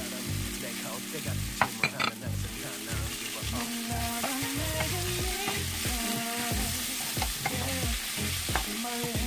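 Sliced pork and kimchi sizzling in a frying pan while a wooden spatula stirs and scrapes through them. A few sharp knocks come about two seconds in.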